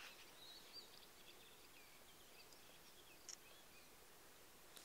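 Faint songbird calls: thin chirps and warbles over a quiet background hiss, with a short, sharp high double chirp about three seconds in.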